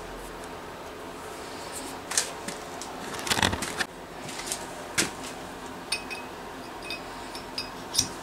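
Aluminium tool parts handled on a workbench: scattered clicks and knocks of metal against metal and wood, the loudest cluster about three and a half seconds in and a single sharp knock near the end.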